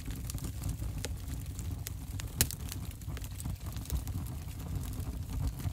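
A fire in a pack stove crackling, with irregular sharp pops over a low steady rumble. The loudest pop comes about two and a half seconds in.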